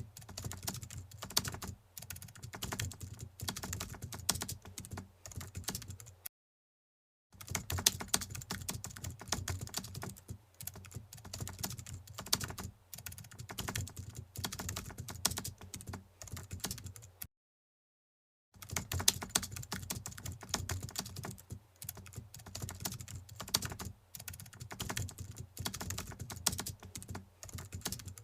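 Rapid keyboard typing: dense runs of quick clicks, cut off twice by a second of dead silence, about six and seventeen seconds in.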